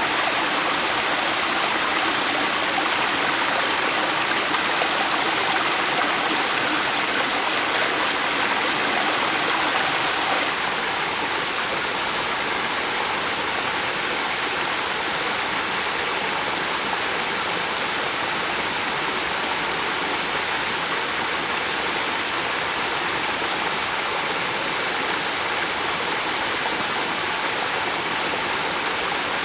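A river flowing steadily, its water rushing and gurgling as a continuous, even noise. About ten seconds in, the sound drops slightly in level and changes a little in character.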